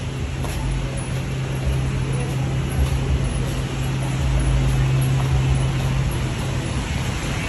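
Steady low motor hum over rumbling background noise; the hum stops about six seconds in.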